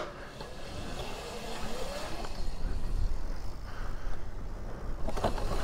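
Razor SX500 electric dirt bike setting off, its stock motor, run on a 48 V lithium battery, giving a faint whine that rises in pitch about two seconds in, over a steady rumble of wind and tyres.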